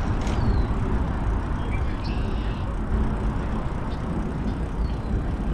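Steady low rumble of a moving bicycle's ride noise, wind and tyres on the path, with road traffic mixed in.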